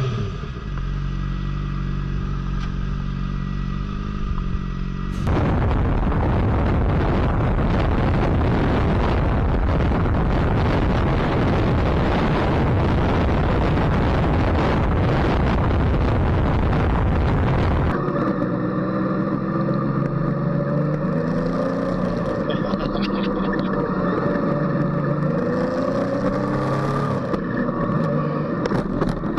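Motorcycle engine running in traffic, then about five seconds in a cut to loud steady wind rush at highway speed. Near eighteen seconds another cut brings a motorcycle engine back, its pitch rising and falling as it revs.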